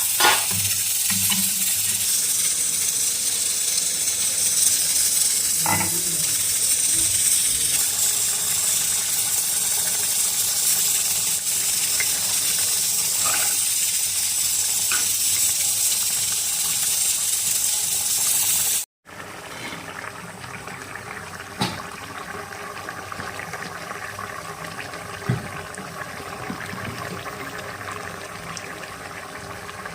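Chicken cooking in a pan, sizzling steadily. About two-thirds of the way through it cuts off suddenly to a quieter bubbling simmer, with a couple of sharp clicks.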